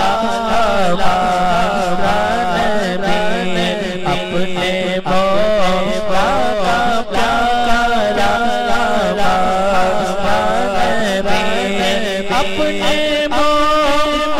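A man reciting a naat, an Urdu devotional poem in praise of the Prophet, in a melismatic sung voice into a microphone. His melody bends and slides over a steady low drone that steps up in pitch near the end.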